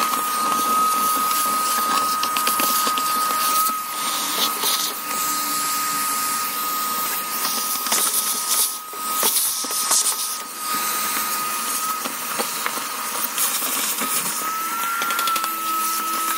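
Shop vacuum running with a steady whine, sucking up dirt and caked crud from the floor and a truck's wheel well, with scattered clicks as debris goes up the hose.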